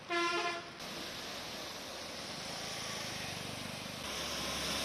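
A vehicle horn honks once, briefly, at the start over the steady rush of water and traffic on a flooded street. About four seconds in, the sound grows louder as an SUV drives through the floodwater, its engine humming under the splashing.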